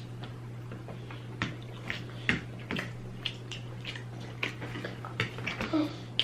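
Close-up eating sounds of a cheeseburger egg roll being chewed: irregular wet smacks and lip clicks, the sharpest about two seconds in and a quick run of them near the end, over a steady low hum.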